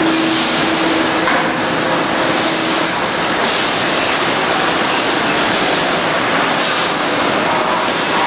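Loud, steady din of a factory floor, from running machinery and overhead fans, with a faint steady hum under it in the first few seconds.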